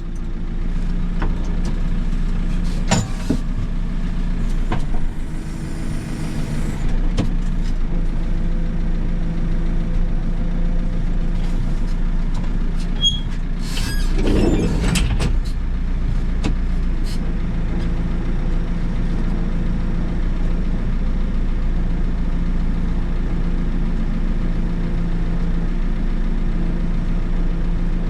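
JCB 3CX backhoe loader's diesel engine running steadily, heard from the cab, with a few knocks and clicks. About halfway through there is a brief rise and fall in pitch.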